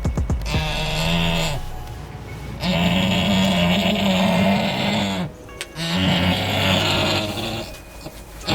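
Goat doe in labour giving three long, low, drawn-out bleats, straining as she pushes to deliver her kid.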